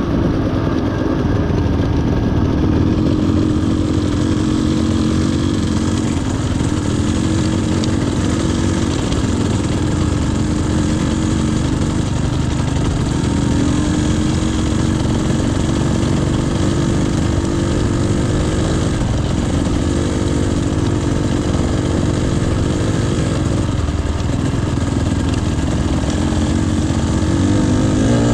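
Off-road motorcycle engine running steadily under way, its pitch drifting up and down a little with the throttle, over a steady rushing hiss.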